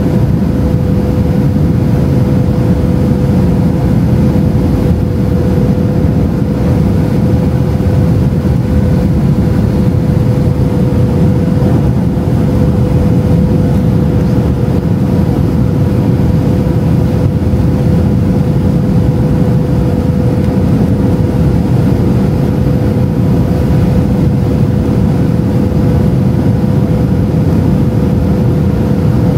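Steady cabin noise inside a Boeing 737-700 over the wing, made of engine and airflow noise, on approach with the flaps extended. A steady hum runs through it, and the noise does not change.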